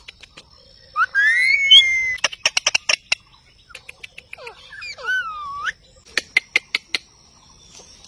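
Indian ringneck parakeets calling: a loud rising, gliding screech about a second in and a curving whistled call around five seconds. Between them come two bursts of rapid, sharp clicks.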